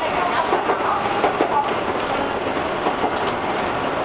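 A 1976 Tokyu Car-built Shizuoka Railway 1000 series electric railcar running at speed, heard from inside the cab, its wheels clicking irregularly over the rail joints above a steady running rumble.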